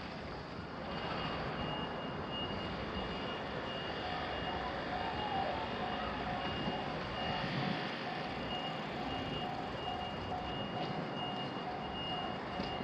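Japanese level-crossing warning alarm ringing: a repeating high electronic tone starts about a second in, and a lower repeating tone joins about four seconds in, over a steady rumbling noise.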